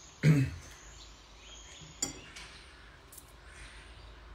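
Faint steady outdoor background noise, broken by a brief vocal sound just after the start and a single sharp click about two seconds in.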